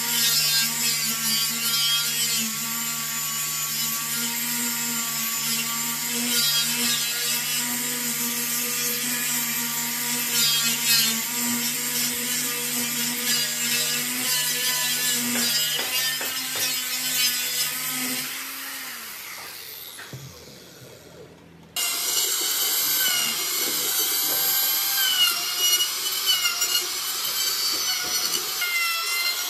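Angle grinder with a sanding disc running steadily against the edge of a wooden stool frame. About 18 s in it is switched off and winds down, its whine falling in pitch and fading. About 22 s in a trim router starts abruptly and cuts into the wood edge with a higher, wavering whine.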